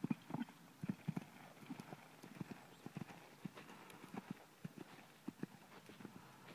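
Hoofbeats of a ridden horse cantering on sand arena footing: a steady run of dull thuds, the heaviest right at the start.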